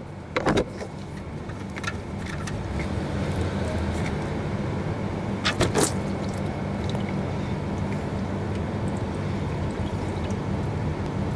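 Hot engine oil pouring from the drain hole of a Subaru Forester XT's sump into a drain pan, a steady pouring sound that sets in after a couple of seconds. A few sharp metallic clinks sound about half a second in and again near six seconds in.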